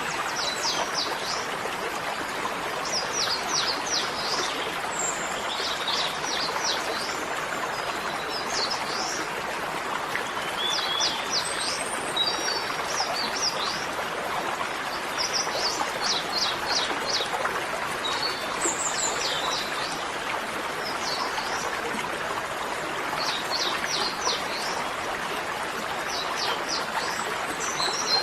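Steady rush of running water. Over it a bird repeats short bursts of quick, high chirps every two to three seconds.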